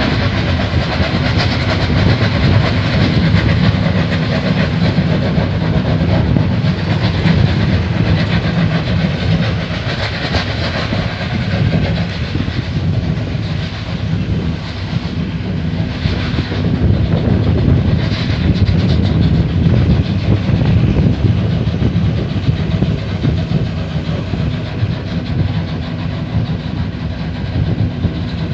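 Loud, steady roar of an uncontrolled gas well blowout (open gas fountain), with a deep, rough rumble underneath.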